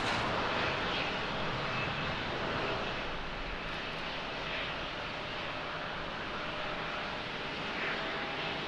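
Jet engines of a Boeing 787 airliner at taxi power, heard from a distance: a steady hiss with a faint high whine running through it.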